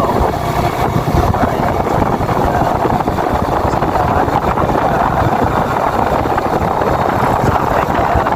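Yamaha Vega New four-stroke underbone motorcycle running under way, its engine sound mixed with wind rushing over the microphone.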